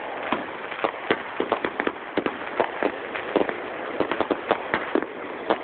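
Fireworks going off: a rapid, irregular run of sharp pops, several a second, over a steady crackle.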